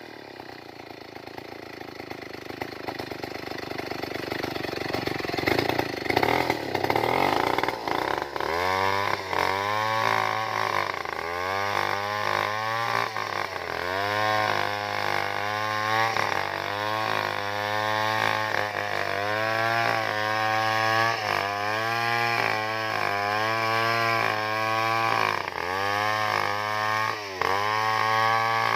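Stihl 070 two-stroke chainsaw at full throttle, ripping a log lengthwise into planks. From about eight seconds in, its engine note settles and dips and recovers about once a second.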